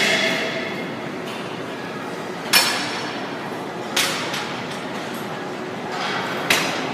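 Cable machine weight-stack plates clanking, three sharp metallic clanks with a short ring as the stack settles between reps, the first the loudest.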